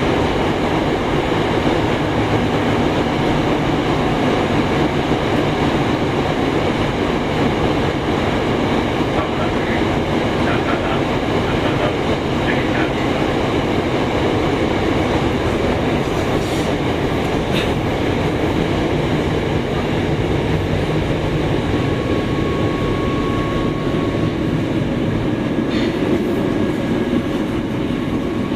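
Yokohama Municipal Subway 2000-series chopper-control train running, heard from inside the car: a steady rumble of wheels on rail with thin steady whining tones over it. A single clearer tone comes in about three-quarters of the way through and fades a few seconds later.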